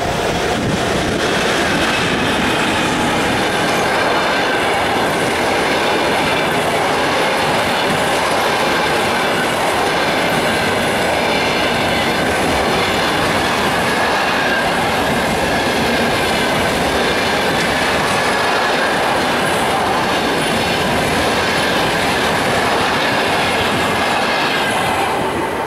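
EP2K electric locomotive and its passenger coaches passing close at speed: a loud, steady rush of wheels on rail with clickety-clack and faint high ringing tones over it, easing off near the end as the last coach goes by.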